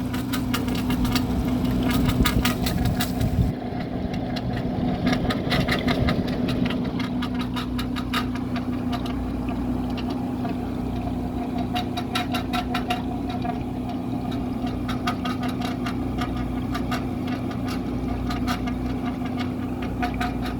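GE 6,000 BTU wall air conditioner running: a steady electrical hum from the compressor and fan motor, with a dense, irregular patter of ticks throughout as the fan flings water. The compressor's accumulator is iced up and the unit blows only a little air.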